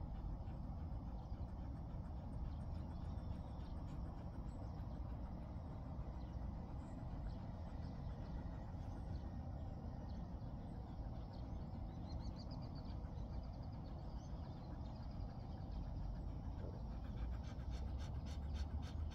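Jindo dog panting steadily while sitting at rest, over a steady low rumble.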